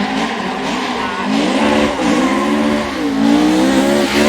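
Rally car engine running hard at full throttle, its pitch climbing and dropping back several times as it shifts up through the gears.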